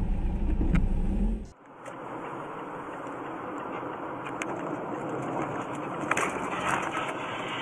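Dashcam car-interior sound: a low engine rumble with a steady hum, cut off abruptly about one and a half seconds in. It is followed by a steady hiss of road and tyre noise from a car driving on a highway, with a few light clicks.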